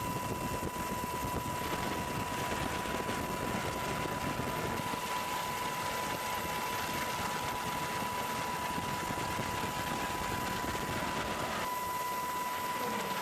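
Steady engine and wind noise from the aircraft filming from the air, with a constant high whine running through it.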